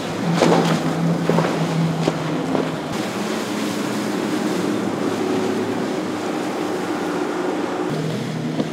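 Powerboat engines running with a steady drone over the rush of water, with a few sharper surges of water noise in the first three seconds.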